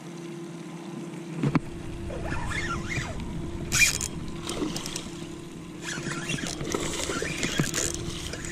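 A hooked peacock bass splashing at the surface as it is reeled in, with a spinning reel being wound and the rod handled. A knock comes about a second and a half in, and the loudest splashing comes around four seconds in and again near the end.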